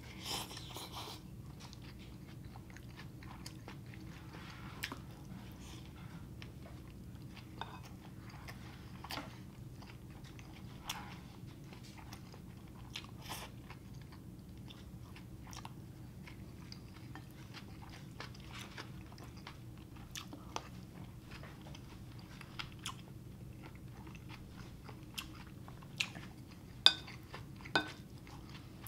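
Close-miked chewing and wet mouth sounds of a man eating soft rice and simmered beef, in many small clicks over a faint steady room hum. A few sharper clicks near the end as the wooden spoon scoops from the ceramic plate.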